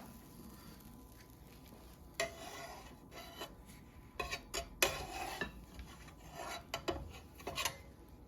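Utensils scraping and clinking against dishes, with scattered clicks and short scrapes starting about two seconds in.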